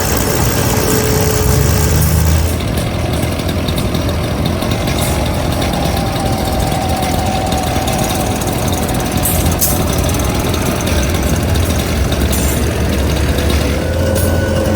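An engine idling steadily with a low rumble, with a few brief faint clicks over it.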